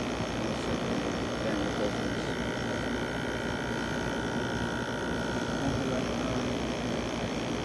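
LG LW6017R 6,000 BTU window air conditioner running: a steady rush of fan air over a low hum, with a faint higher tone that comes in about a second in and fades out near the end.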